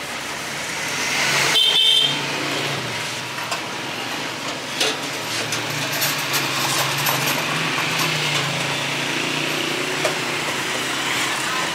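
Street traffic: a vehicle passes close, loudest about a second and a half in, with a short high-pitched tone, then an engine runs steadily with scattered clicks and rattles.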